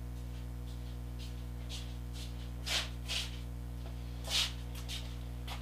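A steady low hum, with a few brief soft rustles in the second half.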